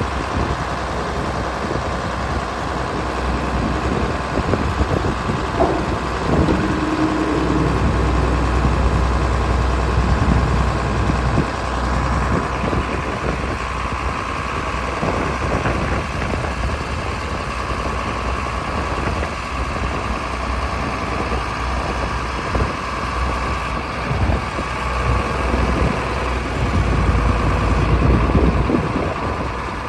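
John Deere 4010 tractor's six-cylinder engine running steadily while the front loader is worked and the tractor drives forward. The engine grows louder for a few seconds about six seconds in and again near the end.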